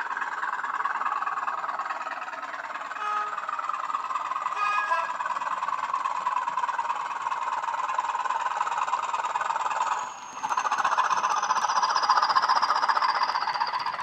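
Class 20 diesel engine sound played by a Hornby HM7000 DCC sound decoder through a model locomotive's small speaker, running steadily as the model moves. About ten seconds in the sound dips briefly, then returns louder with a high whine that slides down in pitch.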